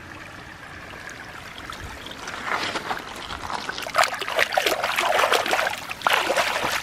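Stream water trickling steadily, then sloshing and splashing as a hand swishes a muddy plastic animal toy through the water to wash it; the splashing starts about two seconds in and grows louder and more rapid.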